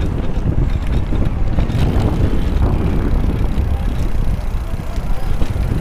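Steady wind rumble on the microphone of a camera riding along on a moving road bike, with road noise underneath.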